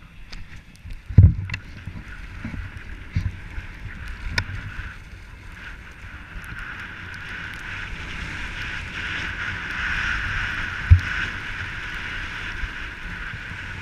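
Skis hissing and scraping over packed groomed snow on a fast downhill run, with wind buffeting the microphone. The hiss grows louder through the middle as speed builds, and there are two sharp low thumps, one about a second in and one a few seconds before the end.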